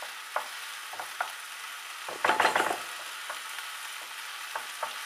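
Rice and onion sizzling in a frying pan over a gas flame while a spoon stirs it, scraping and clicking against the pan. A short cluster of louder knocks comes about two seconds in.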